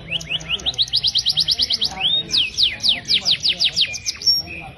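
Brown male mule finch (a canary hybrid) singing: a fast run of sharp, down-slurred whistled notes, about six a second, broken briefly by a short held note about two seconds in before the fast notes resume.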